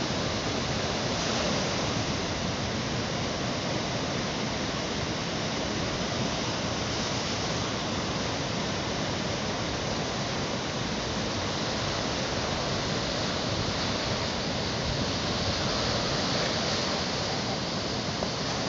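Surf breaking on a sandy beach, a steady, unbroken rush of waves.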